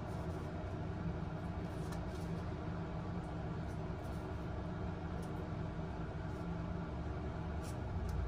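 Steady low room hum with a couple of faint clicks.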